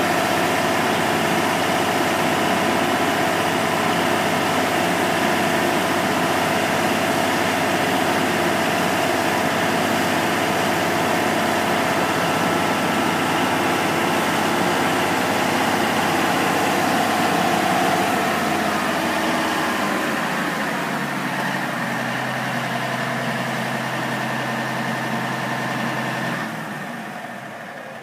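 The tub grinder's 650-plus-horsepower Cummins diesel engine running steadily. About two-thirds of the way in it settles to a lower, quieter note with a steady hum, and near the end the sound dies away.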